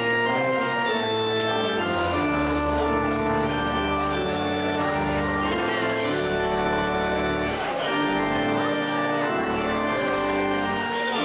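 Church organ playing the closing postlude: full held chords that change every second or so over sustained bass notes.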